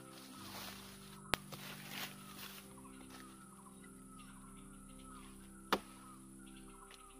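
Quick, repeated bird-like calls over a faint steady hum, with rustling early on and two sharp clicks or snaps: one about a second in and one near the end.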